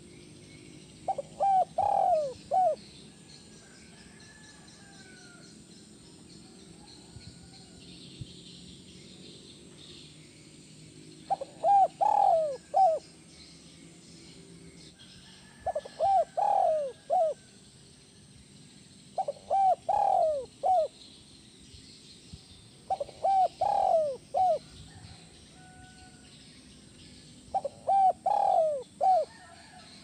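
Spotted dove cooing: six phrases of several quick coos each, a few seconds apart, with faint chirps in between.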